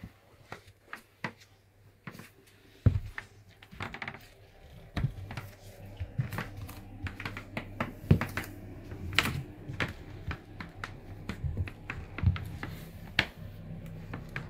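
Footsteps in Converse canvas sneakers: rubber soles tapping and scuffing on a tile floor, with a sharp knock about three seconds in. A steady low hum comes in about five seconds in.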